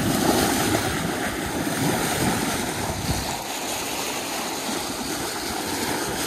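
Bow wave rushing and splashing against a sailboat's hull as it moves steadily through the sea.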